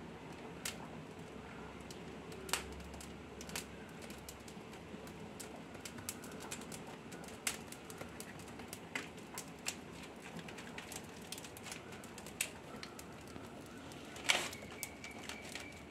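Dry coconut palm leaves crackling as they catch fire, with scattered sharp snaps at irregular intervals and a louder burst of crackles near the end.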